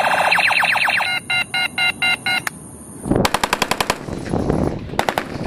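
A battery-powered toy rifle's electronic firing effect: a fast beeping trill, then slower pulsed beeps about four a second, stopping about two and a half seconds in. Then real automatic rifle fire: a long burst about three seconds in and a short burst near the end.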